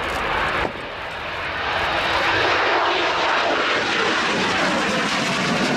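Jet noise from a Harrier II's Rolls-Royce Pegasus vectored-thrust turbofan at high power, as the jet hovers and then flies low. The sound breaks off sharply a little under a second in, then builds again and holds loud.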